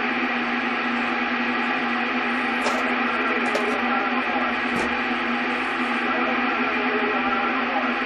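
CB radio receiver putting out steady static with humming tones under it. A few brief clicks break in between about two and a half and five seconds in.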